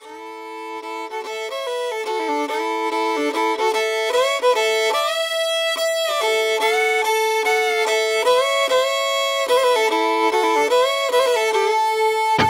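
Solo fiddle playing a melody, fading in over the first few seconds, as the intro to a country song; a fuller band comes in at the very end.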